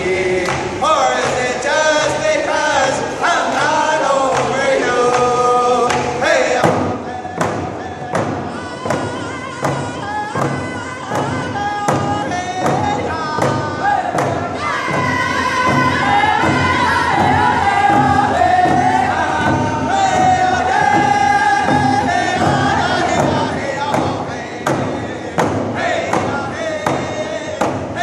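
Round dance song: a group of men singing in unison over a steady beat on hide-covered hand drums. The singing drops out briefly after about six seconds while the drums keep time, then comes back in phrases that step down in pitch.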